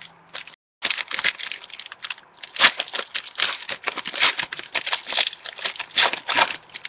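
Foil wrapper of a Panini Certified football card pack crinkling and tearing as it is ripped open by hand, a dense run of quick rustles starting about a second in.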